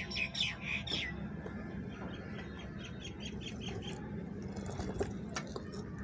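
Small birds chirping: a quick run of descending chirps in the first second, then a string of short, rapid chirps around the middle, over a steady low background hum.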